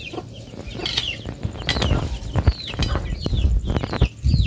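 Chicks peeping in short, repeated falling chirps, over a run of dull thuds and scrapes from about a second in as a hand tool chops weeds out of the soil, with the loudest strikes near the middle and near the end.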